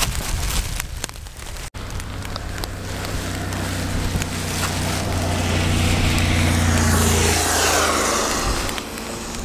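Touring motorcycle approaching and passing by: its engine hum grows louder over several seconds, then drops in pitch as it goes past, with tyres hissing on the wet road.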